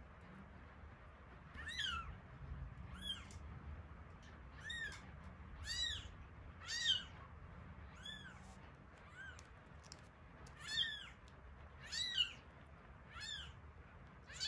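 Young kitten mewing: a run of short, high-pitched mews, each rising and then falling in pitch, coming about once a second.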